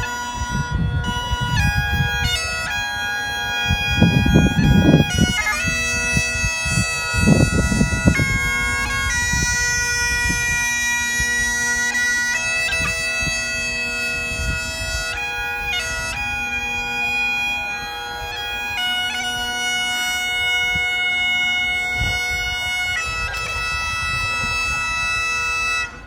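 Bagpipe music: a steady drone under a melody of held notes, with low rumbling gusts twice in the first eight seconds. It cuts off abruptly at the end.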